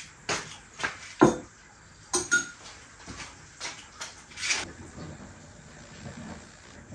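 Kitchenware clinking: a metal spoon and ladle knocking against a metal pot and a ceramic bowl, a run of sharp clinks over the first few seconds, then quieter.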